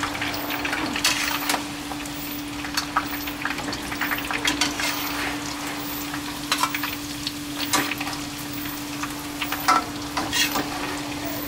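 Sliced shallots deep-frying in a wok of hot oil: a steady sizzle with scattered crackles and clicks as a perforated metal skimmer stirs and lifts them. They are near the end of frying, turning golden. A steady low hum runs underneath.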